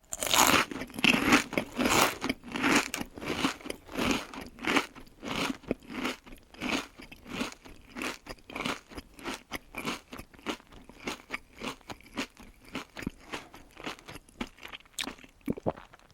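Crunchy chewing: a steady run of bites, about three a second, that starts loud and grows gradually quieter.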